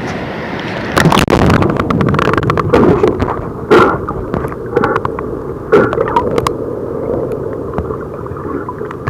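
River water splashing and gurgling around a waterproof camera. About a second in there is a loud splash, followed by muffled bubbling and irregular sloshing with the high end dulled.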